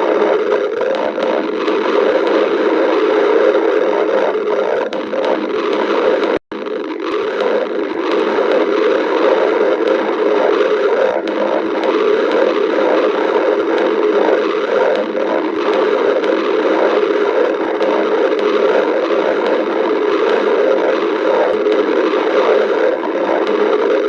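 A person's stomach growling without a break, a loud rumbling gurgle that is cut by a split-second gap about six and a half seconds in.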